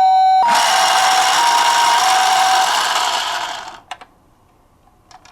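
Toy ambulance minicar's electronic two-tone 'pee-po' siren, switching between a higher and a lower tone about every half second over a loud hiss. It cuts off nearly four seconds in, followed by a few small clicks.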